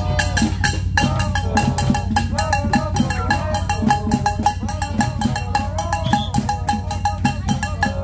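Parade band music: a homemade tin-can marching band drumming a fast, steady beat, with a melody over it.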